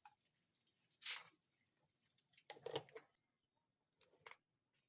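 Quiet room tone broken by a few brief clicks and rustles. The loudest comes about a second in, a cluster follows near three seconds, and one more short click comes about four seconds in.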